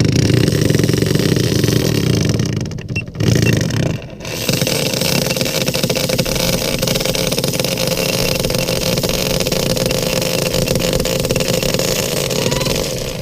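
Small electric toothbrush motor driven far over its rated voltage, running with a loud buzzing whir. It cuts out briefly twice in the first four seconds, then runs on steadily with a noisier whir.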